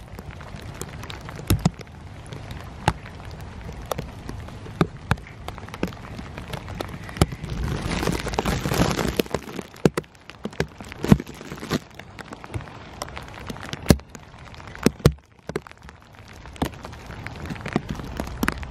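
Rain falling steadily, a constant hiss with irregular sharp ticks of single drops striking nearby surfaces. The hiss swells for a second or so about eight seconds in.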